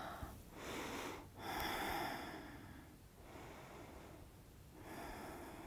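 A woman's slow, deep breathing, soft swells of breath, the loudest about a second and a half in and another near the end, as she recovers from strenuous exercise.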